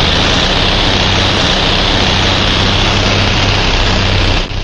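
Cartoon sound effect of a tank's engine running as it drives along: a loud, steady, noisy rumble over a low hum, dipping briefly near the end.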